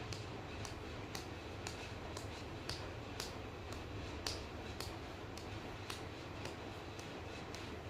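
Regular ticking, about two ticks a second, over a steady low hum.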